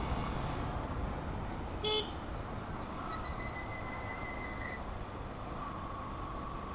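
Busy street traffic with vehicle horns: a short toot about two seconds in, a longer held horn note from about three seconds, and a steady tone coming in near the end over the traffic hum.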